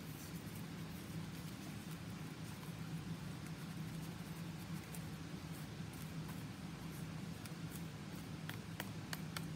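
Faint scratching of a paintbrush on a painted cardboard paper towel roll, and light handling of the roll, over a steady low hum. A few small clicks come near the end.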